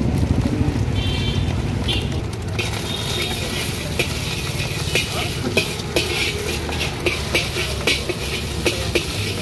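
Metal spatula scraping and clinking against a metal wok as a fried egg is chopped and stirred, over the sizzle of frying, with the clinks and sizzle coming in from about two and a half seconds in. A low engine rumble runs underneath.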